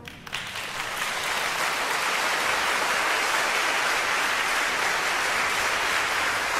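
Audience applause in a concert hall, breaking out just as the brass band's final chord dies away and quickly settling into steady clapping.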